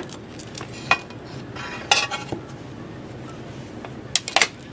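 Sheets of glass being handled and set down on a glass surface: a few sharp clinks and taps, a short cluster about two seconds in and two quick ones near the end.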